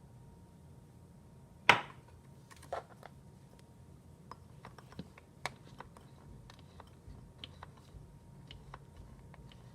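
Scattered small clicks and taps, with one louder knock nearly two seconds in.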